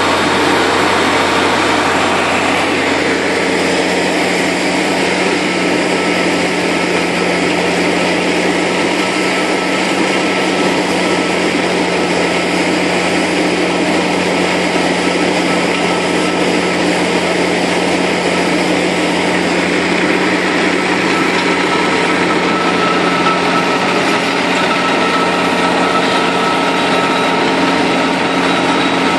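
Fendt 718 tractor engine running steadily under load, driving a PTO-powered slurry mixer at working speed, with a steady whine over the engine note.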